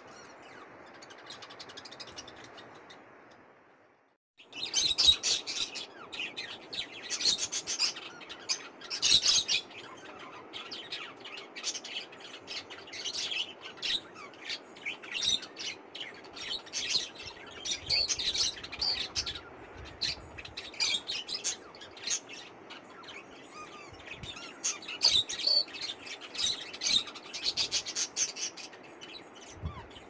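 Pet budgerigars chirping and chattering in quick, busy bursts, starting about four and a half seconds in after a few seconds of faint steady hiss.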